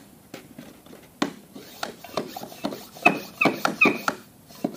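Garden pump sprayer being hand-pumped to push engine oil through a hose into a Gen 3 Hemi's oil passages for priming. A few knocks come first, then quicker strokes, with a short squeak on each stroke from about three seconds in.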